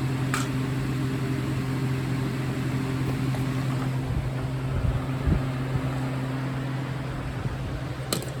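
A steady low hum, like a fan or appliance running, with a sharp click about half a second in, a few dull knocks around the middle and more clicks near the end: a plastic smoke alarm being handled and fitted onto a wall screw.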